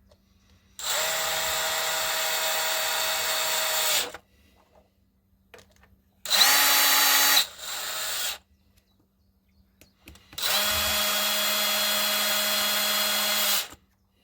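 A power screwdriver runs in three bursts, driving in the screws that hold a power tool's housing together. The first and last bursts last about three seconds each; the middle one is shorter and drops in level about a second in.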